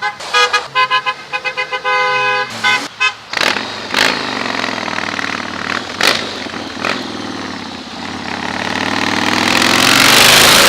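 Vehicle horn tooted in a quick string of short beeps, then one longer honk. After that comes a passing vehicle's engine and road noise, which swells and is loudest near the end.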